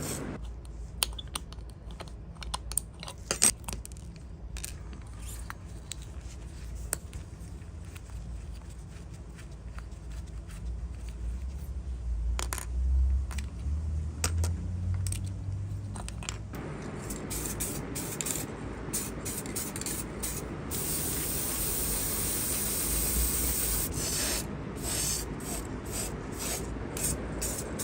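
Spray hissing in bursts, with light clicks and scraping of small parts being handled first.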